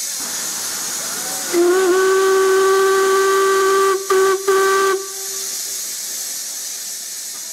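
Steam whistle of LMS Stanier Class 5 4-6-0 No. 45231 sounding one long blast of a few seconds, starting about a second and a half in and broken twice briefly near its end. This is the five-minute warning before departure. Steady steam hiss from the standing locomotive runs throughout.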